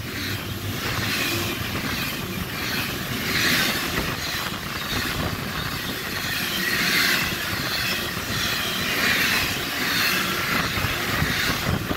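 Union Pacific manifest freight train's cars passing at speed: a steady rumble and hiss of steel wheels on rail, swelling and easing every couple of seconds.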